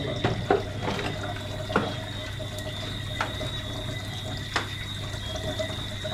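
Water running steadily over a steady hum, with a few light knocks and clicks scattered through it.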